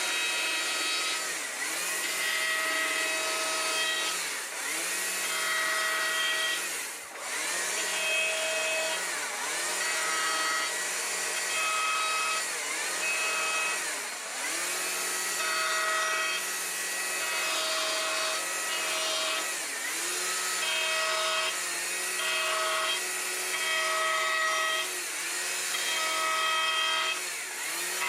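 Electric power tool carving into a wooden board: a steady motor whine that sags briefly in pitch each time it bites into the wood, about every couple of seconds.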